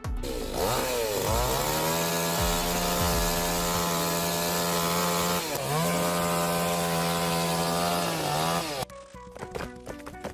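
Chainsaw revving up to full throttle and cutting through a log, with one brief dip in speed about halfway and a sudden stop near the end. Quieter knocks follow.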